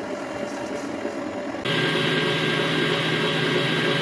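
Electric stand mixer's motor running steadily while its wire balloon whisk beats eggs and sugar in a stainless steel bowl, whipping them into sponge cake batter. About 1.7 s in it gets louder, with a stronger steady hum.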